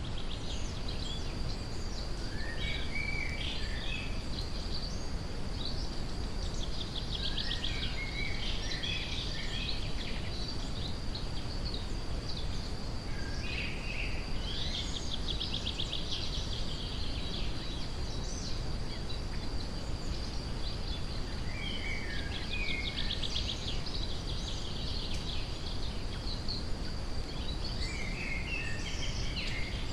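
Songbirds singing in a forest, over a steady brown-noise hiss. Phrases of descending chirps and fast trills come back every five or six seconds, and a thin, steady high tone runs underneath.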